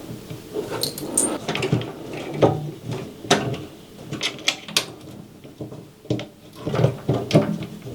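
Screws being driven into a CPU cooler's mounting bracket by hand, with repeated sharp clicks and scraping of small metal parts being handled.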